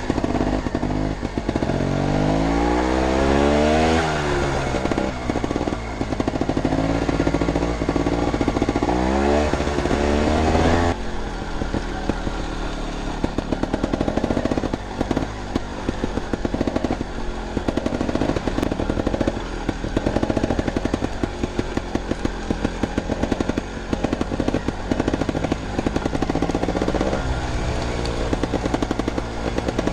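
Montesa Cota 315R trials motorcycle engine riding along, revving up and down several times in the first ten seconds or so, then running at low revs with an uneven, choppy beat, and picking up again near the end.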